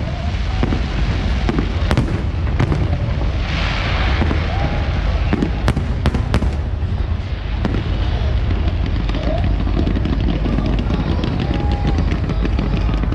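Fireworks display: a continuous low booming rumble with many sharp cracks and bangs, and a burst of crackling hiss about four seconds in.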